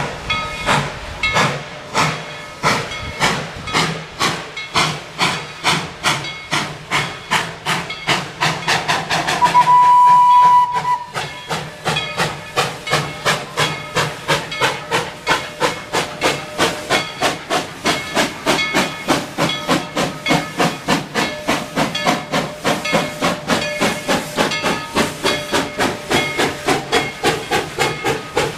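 Steam locomotive chuffing steadily as the train moves, about two exhaust beats a second with hiss, and one short whistle blast about ten seconds in.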